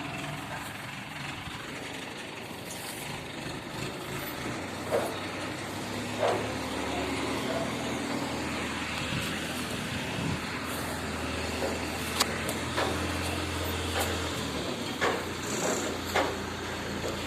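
A steady low mechanical hum that grows stronger about five seconds in, with scattered sharp clicks and knocks over it.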